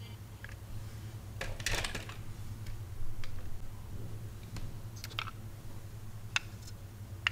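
Small irregular clicks and taps of toy cars being handled, a few close together at a time, over a low steady hum.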